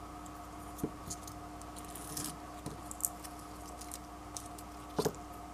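Garlic cloves handled on a plastic cutting board: a few scattered light taps and clicks, with a brief soft rustle a little after two seconds in. A steady electrical hum runs underneath.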